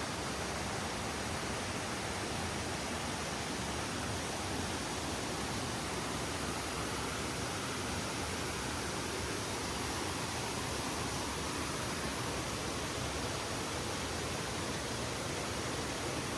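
Rushing water, a steady even roar with no changes.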